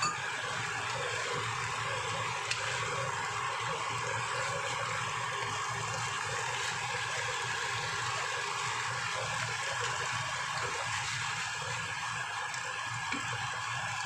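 Taiwanese spinach (pocai) sizzling steadily in hot oil in a nonstick pan as it is stir-fried, with a few faint clicks of the spatula against the pan.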